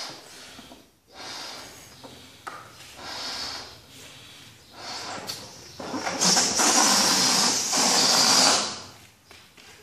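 Rubber balloon being blown up in a series of breaths, then its air let out through the neck in a loud buzzing 'boo' lasting about three seconds near the end.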